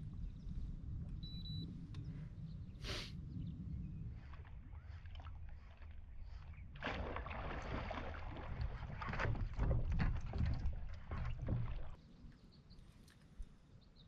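Water splashing and knocking around a kayak over a low rumble of wind on the microphone. The splashing grows louder about seven seconds in, then everything drops away suddenly about twelve seconds in.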